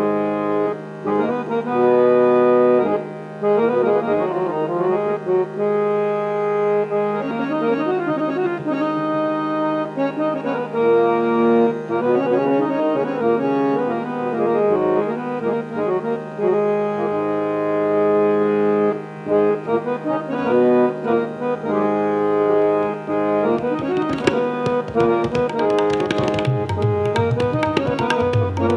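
Harmonium (samvadini) played solo: melodic runs of reedy, sustained notes over a steady held drone note. Tabla strokes join in a few seconds before the end.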